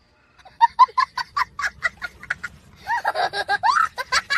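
High-pitched cackling laughter from a man, in quick short hoots about five a second, then longer whoops that swoop up and down near the end.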